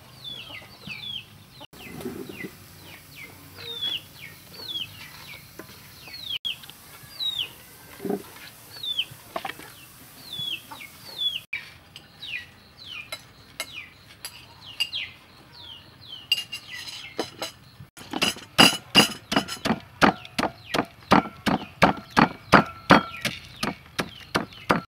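Wooden pestle pounding peanuts in a wooden mortar: loud, even strokes about three a second, starting about eighteen seconds in. Before that, a bird chirps over and over in short falling notes, with a few soft clinks of utensils.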